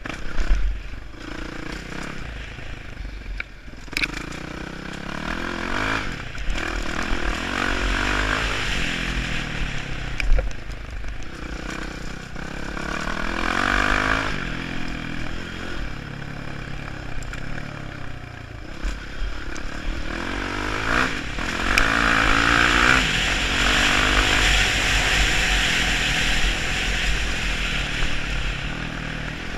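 Dirt bike engine revving, its pitch climbing and dropping several times as the rider accelerates and backs off, with a few knocks over the rough track. Heard close up from the rider's helmet camera.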